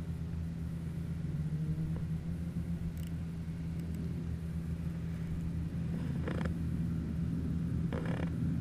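Steady low hum, with a couple of brief rustles about six and eight seconds in.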